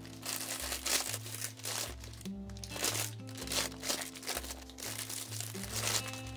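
Clear plastic packaging crinkling in bursts as sealed items are handled, over background music with a steady bass line.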